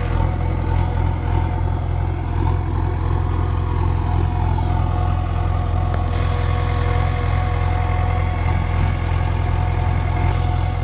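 Heavy diesel engine of the backhoe loader and tractor at work, running steadily at an even speed with a steady whine above the low hum.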